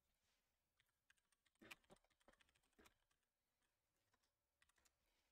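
Faint clicks of typing on a computer keyboard, in a run of keystrokes in the first half and a few more near the end, against near silence.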